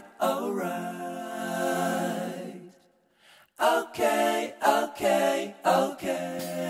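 Vocal music: a singing voice with little or no accompaniment, breaking off for under a second about three seconds in.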